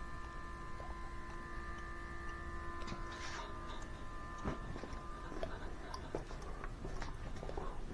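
Small electric motor humming steadily from the leak-test smoke machine's air pump, fading out after about three seconds. Scattered clicks and light knocks of handling and footsteps run alongside.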